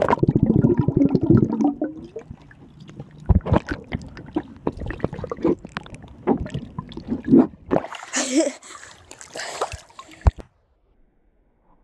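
Swimming-pool water heard through a phone's microphone held underwater: muffled bubbling and gurgling with many small clicks and knocks. About eight seconds in the phone breaks the surface and there are about two seconds of splashing water, which cut off abruptly.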